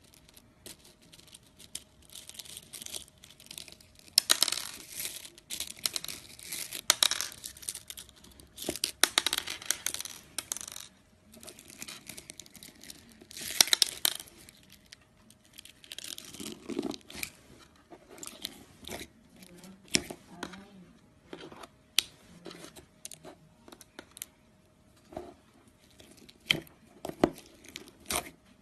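Slime being squished and stretched by hand: sticky crackling and popping clicks in bursts. They are dense through the first half and thin out to separate pops in the second half.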